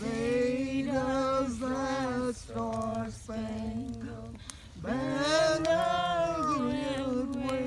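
Music with singing: a voice holds long, slightly wavering notes, each about a second, over a low steady drone, with one longer swelling note about five seconds in.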